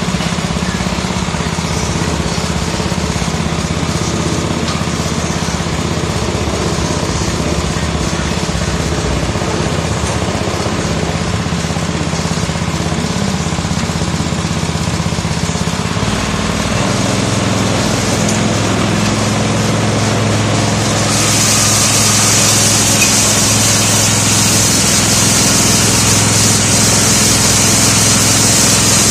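Motor-driven pepper grinding mill running steadily while peppercorns are fed through its hopper. The low hum of the drive drops in pitch about halfway through, and a few seconds later a high hiss grows louder.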